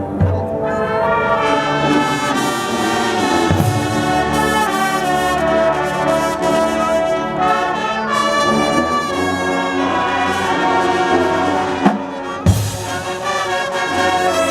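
High school marching band playing a brass-led passage: sustained full-band chords from the horns, with a few drum hits, two of them near the end.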